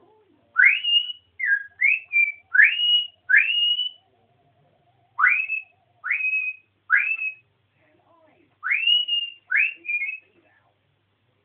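African grey parrot whistling a string of about a dozen short, loud rising whistles, each sweeping sharply up and holding briefly at the top note. They come in quick clusters with a pause of about a second in the middle and stop about a second before the end.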